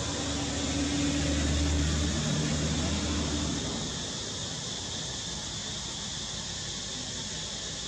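Steady background hiss with a low engine hum, as of a passing vehicle, that swells slightly and then fades out a little under four seconds in.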